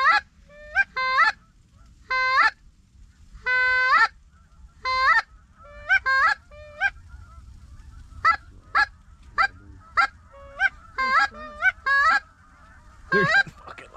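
Snow geese calling loudly: a stream of short, high, yelping honks, some in quick pairs, with the chatter of a larger flock building behind them from about five seconds in.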